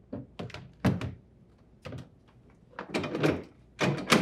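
Plastic freezer drawer knocking and clicking against its metal slide rails as it is set back into the refrigerator's freezer. It is a series of short, sharp clunks: several in the first second, one near two seconds in, and bunches around three and four seconds in.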